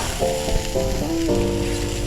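Background music, with notes changing every fraction of a second, over burgers sizzling as they cook.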